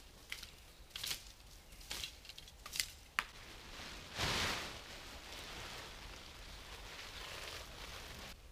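A few sharp clicks, then the crinkling rustle of a blue polyethylene construction tarp being unfolded and shaken out, loudest about four seconds in.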